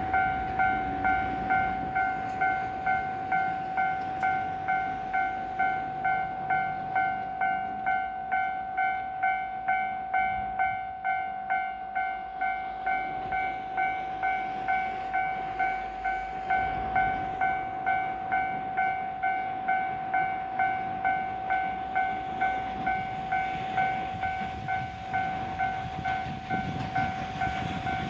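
Japanese level-crossing alarm ringing, an electronic bell that beats steadily about one and a half to two times a second. Near the end the low rumble of an approaching JR Freight EF210 electric locomotive and its container train rises under the bell.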